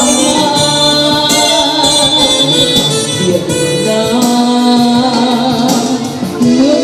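A woman singing through a handheld microphone, holding long notes over an instrumental accompaniment with a light percussive beat.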